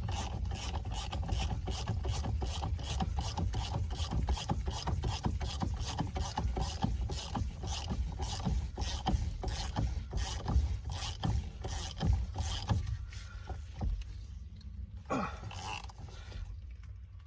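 Ratchet wrench clicking in a steady run, about three or four clicks a second, as the steering wheel's retaining bolt is driven in against thread locker; the clicking stops about thirteen seconds in.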